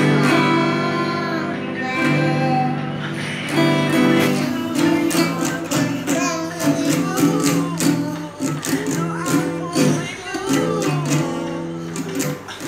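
Acoustic guitar strummed by a child who sings along. The chords ring out at first, and from about four seconds in the strumming becomes quicker and more even.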